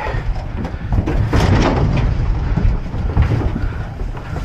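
Beef calves shuffling and jostling inside an aluminum livestock trailer: hooves on the bedded floor and bodies knocking the metal walls over a steady low rumble, with sharper clatters about a second and a half and three seconds in.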